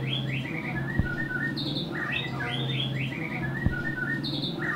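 A small songbird singing a short phrase of quick, high chirps, repeated about every two and a half seconds, over a low steady hum. Two sharp knocks, about a second in and again near the end.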